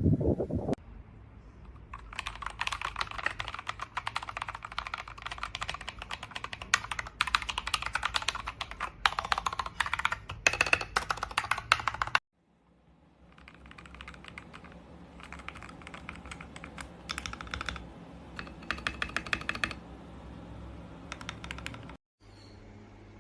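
Fast typing on a mechanical keyboard fitted with XDA-profile PBT keycaps, a dense run of key clacks. It stops abruptly about twelve seconds in, then resumes after a short break as shorter bursts of typing.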